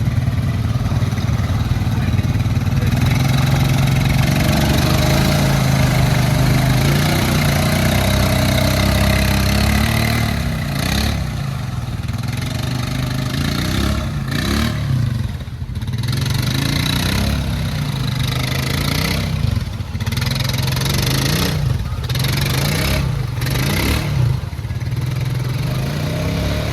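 ATV engine running hard at a steady pitch, then revved up and down over and over, about once a second, in the second half.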